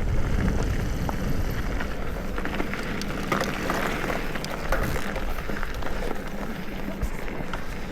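Wind buffeting the microphone over a steady low rumble, with scattered clicks and rattles, as from something on the move.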